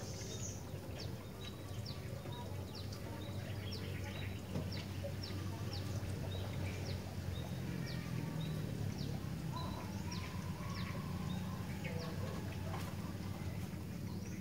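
Sooty-headed bulbul (kutilang) calling: a long series of short, sharp, high chips that slide downward, repeated about every half second to a second, over a steady low hum.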